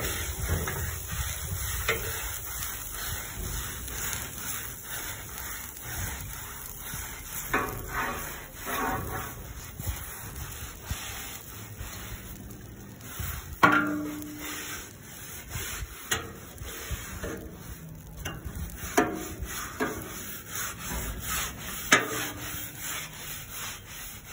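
A scouring pad scrubbed back and forth across the wet steel top of a Blackstone flat-top griddle, a steady rough rubbing. A few sharp knocks come in the second half, the loudest a little past the middle.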